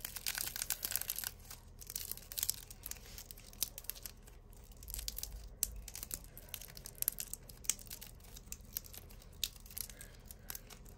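Crackle slime squeezed and pulled apart by hand: its cracked shell crackles in many small, irregular crunches as the soft clay inside stretches and tears.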